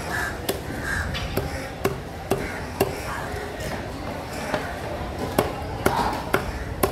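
A heavy fish knife chopping tuna on a wooden log chopping block: sharp knocks, about two a second with a short pause midway, as the blade cuts through the flesh into the wood.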